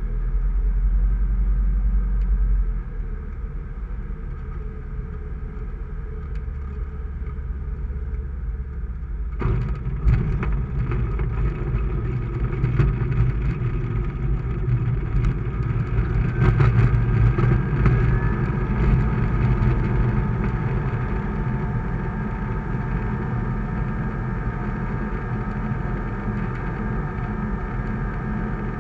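Sling 2 light aircraft's Rotax 912 four-cylinder engine and propeller heard from inside the cockpit. It runs at low power, then the throttle is opened sharply to full takeoff power about nine and a half seconds in. The note climbs a little a few seconds later and then holds steady as the aircraft rolls down the runway and lifts off.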